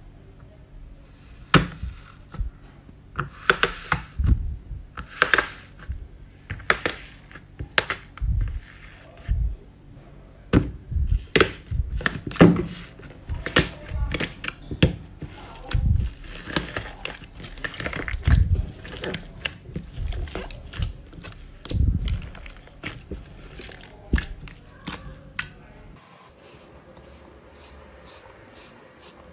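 Hands pressing and kneading a thick slime, giving irregular sharp pops and crackles with soft squishing thuds, one or two a second. Near the end the sounds turn much quieter and sparser.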